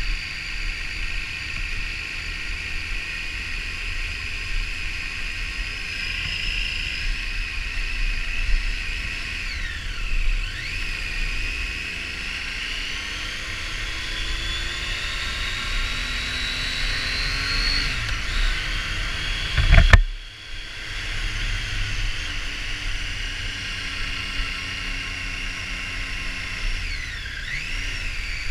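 Triumph Street Triple R's three-cylinder engine under way, heard over wind rush on the helmet or bike camera's microphone; its pitch climbs steadily through a long pull, then falls and rises again with the throttle. A sharp, loud thump comes about two-thirds of the way in.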